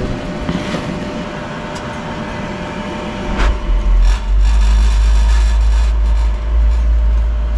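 Pentair MasterTemp gas pool heater lighting about three seconds in: a sudden whoosh, then a steady low burner rumble over the running pool equipment. This is the heater firing as it should.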